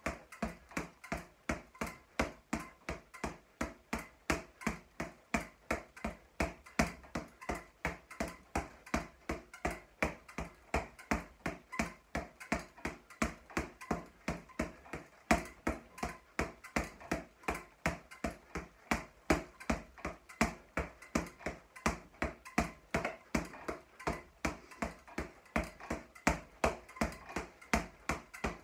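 Boxing gloves repeatedly striking a leather floor-to-ceiling (double-end) ball, its bands tightened so it rebounds quickly. The hits come in a steady rhythm of about three a second.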